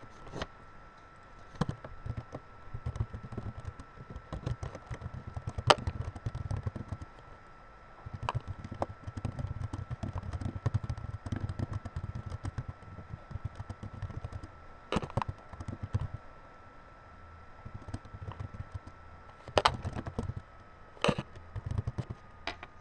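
Typing on a computer keyboard in quick runs of keystrokes, with a few sharper, louder clicks in between. A faint steady high-pitched hum runs underneath.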